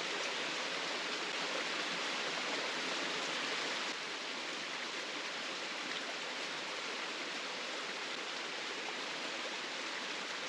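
Mountain creek rushing steadily over a small cascade.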